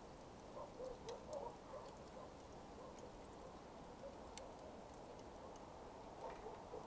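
Smouldering coals crackling faintly: sparse, sharp little ticks and pops over a low steady hiss.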